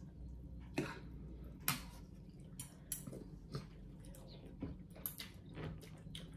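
Two people eating pho: a series of short slurps of noodles and broth, mixed with metal spoons and forks clinking against ceramic bowls.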